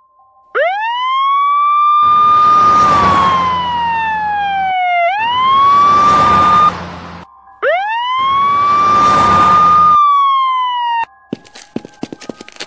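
Police siren wailing: three slow wails, each rising then falling, with a rushing noise under the loudest parts. Near the end the siren cuts off and a quick run of clicks and taps begins.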